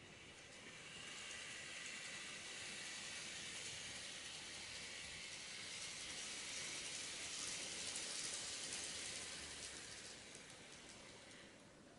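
N-gauge model of an Osaka Municipal Transport 60 series train running on the layout track, its small motor and wheels giving a faint steady hissing whir that grows as it approaches and eases off near the end as it slows into the platform.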